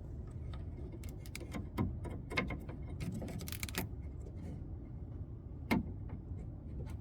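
Plastic clicks, taps and light rattles of a replacement interior door handle being worked into a Toyota Sienna's door, with a quick run of clicks in the middle and one sharper knock near the end.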